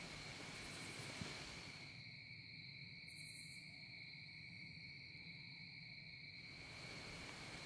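Faint, steady high-pitched insect buzz, a constant drone that holds one pitch without a break. A single footstep on dry leaf litter about a second in.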